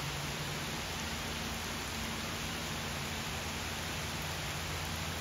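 Heavy rain falling on open river water: a steady, even hiss of countless drops striking the surface, with a steady low hum underneath.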